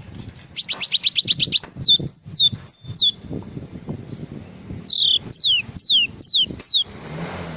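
A glatik singing an imitation-filled song. It opens with a quick trill of about eight high chirps, then gives three clear whistled notes that fall sharply in pitch, and later a run of five more falling whistles.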